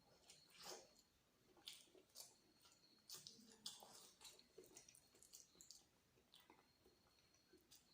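Faint close-miked chewing: wet mouth clicks and smacks of a person eating, coming irregularly.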